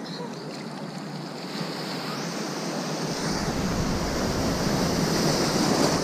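Ocean surf breaking and washing through shallow water close to the microphone, a steady rushing that grows louder toward the end. A deeper rumble joins about three seconds in.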